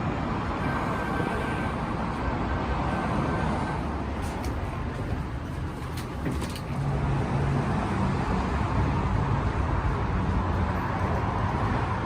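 Steady vehicle rumble with road-traffic noise, a few short clicks in the middle, growing louder about seven seconds in.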